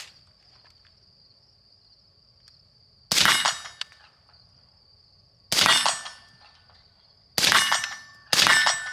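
Four suppressed shots from a 5.56 rifle with a 12.5-inch barrel wearing an Aero Precision Lahar 30-K suppressor, firing 55-grain PMC. Each shot is a sharp crack with a short ringing tail, fired at uneven intervals, the last two under a second apart. A steady high cricket chirring runs beneath the shots.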